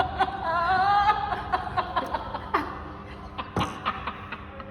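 High-pitched laughter that wavers up and down for the first second or so, then trails off into quieter snickers with a few short clicks.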